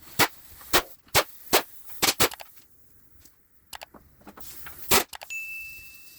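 Sharp metallic clicks from hand tools working on the engine's fasteners, about two a second for the first two seconds, then a pause and a few more scattered clicks. A faint steady high tone comes in near the end.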